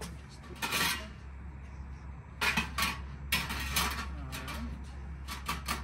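Metal trays and an aluminium pan clattering and scraping as they are slid back into the lower part of a Masterbuilt electric smoker, several separate clanks, over a steady low hum.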